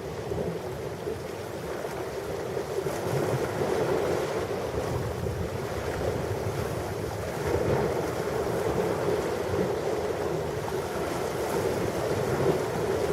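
Ocean surf: a steady wash of waves breaking, swelling louder about every four seconds.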